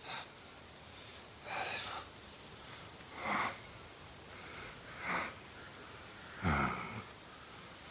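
A man breathing heavily: five short, hard breaths spaced about a second and a half apart, the last and loudest with a voiced catch that drops in pitch.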